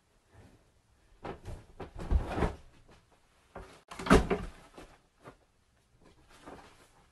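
A few soft thuds and knocks, the loudest about four seconds in.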